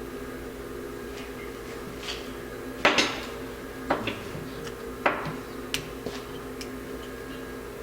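Small metal carburetor parts clinking and knocking against each other and a hard surface in a few separate sharp strikes, the loudest about three seconds in, over a steady low hum.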